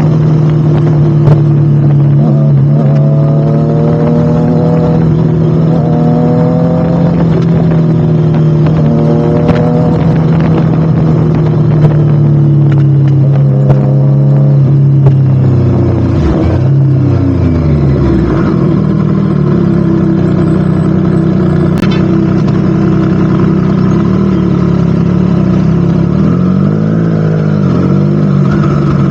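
Triumph Street Triple RS inline-three with a Spark slip-on exhaust, running at a steady pitch. About sixteen seconds in, the pitch drops and climbs again as the revs fall and pick back up, then wavers up and down near the end.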